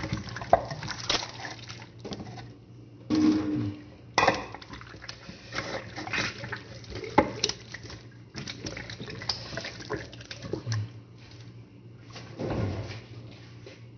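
Hands rubbing and handling a wet raw whole chicken on a plate: irregular wet squelches, pats and light knocks against the plate as seasoning is rubbed in.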